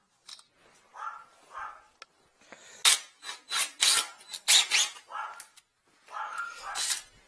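A dog barking in short repeated barks, with a loud clatter of hard tools being handled in an aluminium tool case through the middle.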